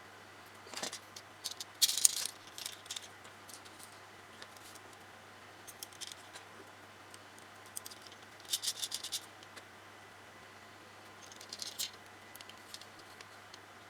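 Small plastic Mini 4WD kit parts being handled during assembly: scattered short clicks and rattles coming in clusters, the loudest about two seconds in, over a faint steady hum.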